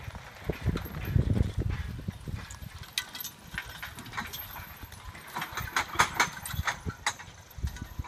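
Team of draft horses walking with the log trailer: hoof steps and dull thuds, then a run of sharp clinks and knocks that is densest about two thirds of the way through.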